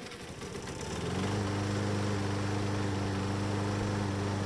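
Radio-controlled push mower's gasoline engine starting by remote: it catches about a second in, then runs at a steady, even speed.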